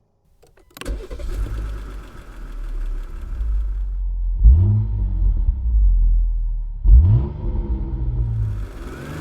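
Jeep Grand Cherokee engine starting about a second in and running, then revved sharply twice before dropping back toward idle near the end.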